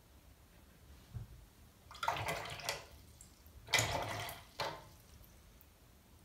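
A paintbrush rinsed in a pot of water: two short sloshing swishes a little over a second apart, then a brief third one, with a soft knock before them.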